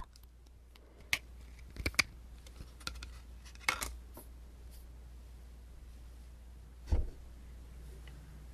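Handling noises close to the microphone: a few scattered sharp clicks and soft taps, with a louder thump about seven seconds in, over a steady low hum.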